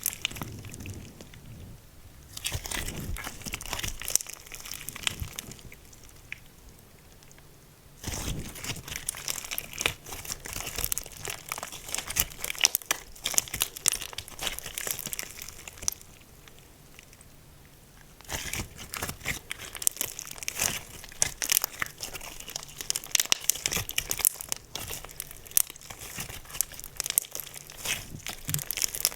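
Slime worked by hand: dense sticky crackling and popping clicks, in busy stretches with two quieter lulls, about five and fifteen seconds in.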